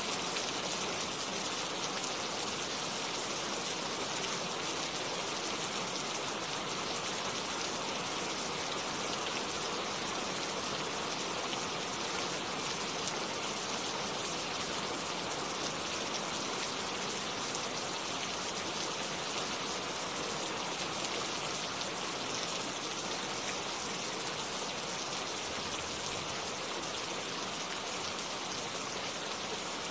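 Steady rain falling, an even hiss of drops without breaks or thunder.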